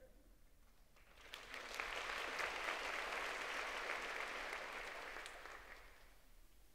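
Audience applauding. The clapping starts about a second in, holds steady, then fades away near the end.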